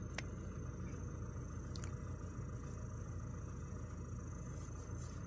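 Steady low background rumble, with a faint click near the start and another about two seconds in.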